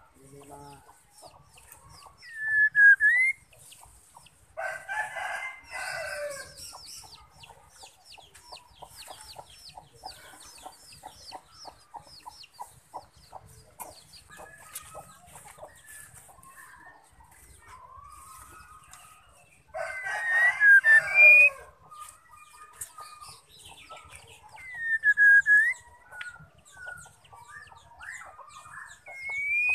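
A rooster crows twice, about five seconds in and again about twenty seconds in. Between the crows come short curved whistles from a white-rumped shama, and a long run of fast, faint ticking.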